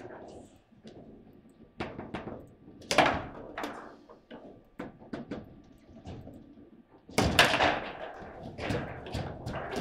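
Table football in play: irregular sharp knocks and clacks as the ball is struck by the players on the rods and hits the table, with a louder flurry of impacts about seven seconds in.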